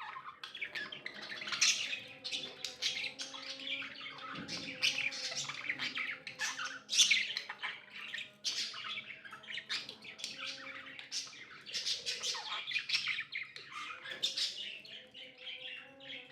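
Several pet budgerigars chattering: a dense, unbroken stream of quick, overlapping chirps and squawks.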